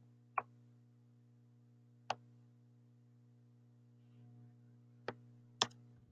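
Four sharp computer mouse clicks, spread over the few seconds, the last two about half a second apart, over a faint steady low hum.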